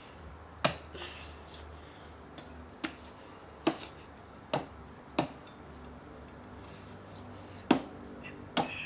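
Meat cleaver chopping through a side of pork ribs onto the cutting surface: about eight sharp, irregularly spaced chops, with a pair close together near the end.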